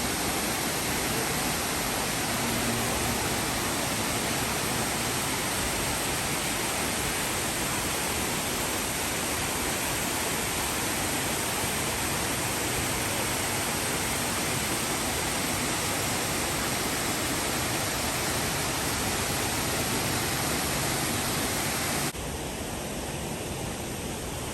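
Steady rushing of Multnomah Falls' lower falls, water pouring down and splashing. Near the end it drops suddenly to a quieter, duller rush.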